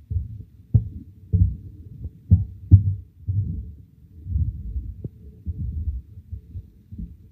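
Dull, muffled thuds and low scraping as a silicone spatula stirs and turns flat rice noodles in a pan, with several heavier knocks in the first three seconds.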